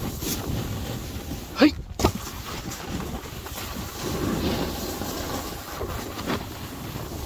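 Wind buffeting the microphone over the steady low rumble of a snowboard sliding down a snowy slope, with a short sharp scrape about a second and a half in.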